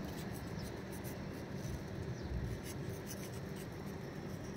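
Faint scratching and rubbing with light clicks, over a low steady rumble.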